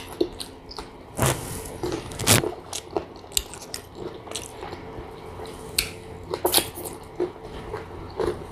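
Close-up eating sounds: biting and chewing crisp slices of sour green mango, with sharp crunches and wet mouth sounds. The loudest crunches come a little over a second in, at about two and a half seconds, and at about six and a half seconds.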